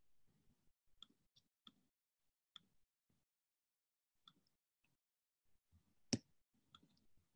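Faint, irregular clicks over near silence, with one sharper, louder click about six seconds in.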